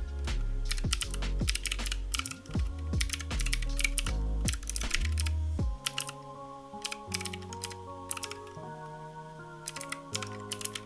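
Typing on a mechanical keyboard with clicky Gateron Blue switches: quick runs of sharp key clicks, over background music whose heavy bass drops away about six seconds in.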